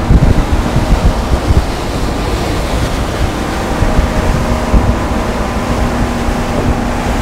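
Wind buffeting the microphone and water rushing past the hull of a center-console boat running at about 25 mph, with a steady outboard engine tone underneath.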